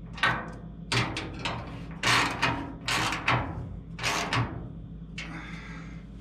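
Hand ratchet wrench working in short strokes, clicking as it snugs up half-inch bolts on a hood-catch bracket. There are about eight brief bursts of clicking in six seconds, spaced about half a second to a second apart.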